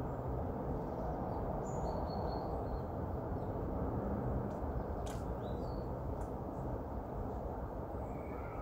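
A few faint, short, high small-bird chirps over a steady low outdoor background noise, with a single sharp click about five seconds in.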